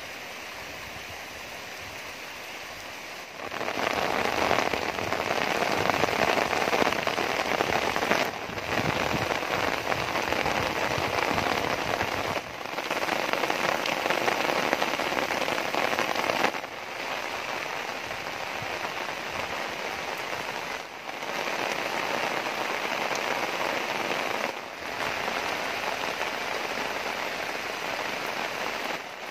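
Heavy rain falling steadily, an even hiss of drops on the ground and roofs. It gets louder about three seconds in, with brief dips every four seconds or so.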